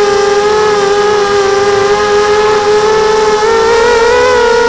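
QAV250 mini quadcopter's brushless motors and propellers whining steadily through its onboard camera: a cluster of close, slightly beating tones that waver with throttle and rise a little about three and a half seconds in.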